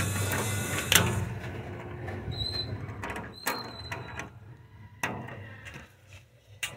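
Key turning in the lock of a glass shop door as it is locked: a sharp click about a second in, then a few lighter clicks and two short squeaks, with a low rumble fading out.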